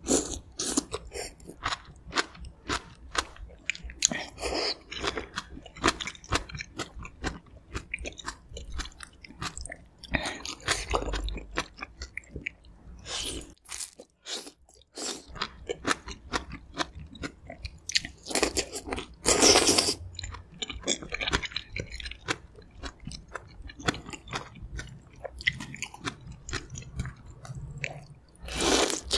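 Close-miked mouth sounds of eating kimchi gamjatang, a spicy pork-bone stew: many quick, wet chews and bites, broken by a few longer slurps as strips of aged kimchi and noodles are sucked in. The loudest slurp comes about two-thirds of the way through.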